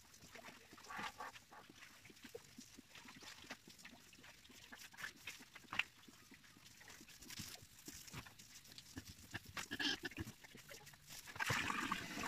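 Pigs in a pen grunting faintly and intermittently, among scattered small clicks and knocks.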